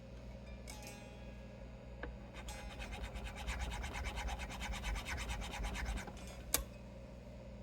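Nut slotting file scraping back and forth in a guitar nut slot, lowering a string slot that sits a touch too high. It starts with light scraping, then a run of quick, even strokes, with a single sharp click near the end.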